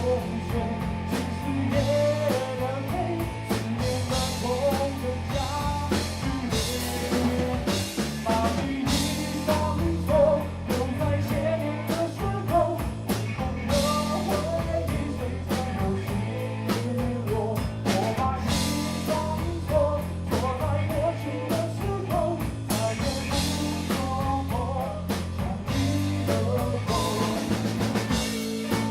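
Rock band playing live: electric guitar, bass and drum kit, with a singing voice over them.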